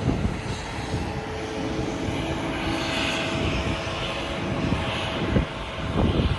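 Jet airliner engines running with a steady rumble and a few held tones.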